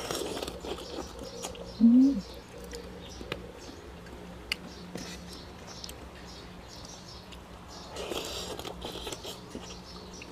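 Close-up chewing and mouth sounds of a person eating, with small clicks and smacks throughout. A short hum of the voice, rising in pitch, sounds about two seconds in.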